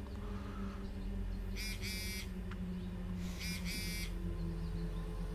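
Two incoming text-message alert tones from a phone, about a second and a half apart, each a brief high-pitched chiming pattern, over a low steady hum.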